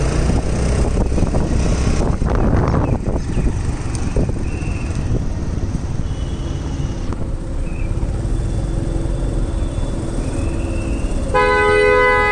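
Car driving slowly, heard from inside: a steady low rumble of engine and tyres. Near the end a car horn sounds once for about a second.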